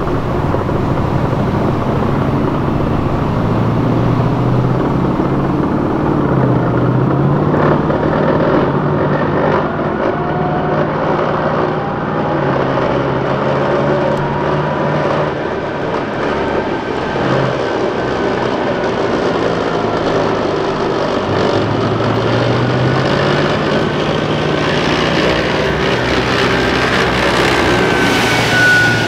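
Heavy military diesel engines of a column of armored vehicles driving past, their note rising and falling as they change speed. There is a high whine over the engines, and the sound is loudest near the end as a CV90 tracked infantry fighting vehicle passes close, its whine dropping in pitch as it goes by.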